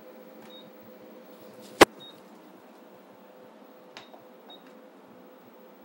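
Steady hum from an ultrasound scanner, with a few short, faint high beeps from its console. One sharp click about two seconds in is the loudest sound.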